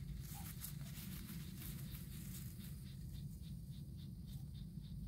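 Quiet outdoor ambience: a steady low rumble of wind on the microphone. From about three seconds in there are faint, soft high ticks, about four a second.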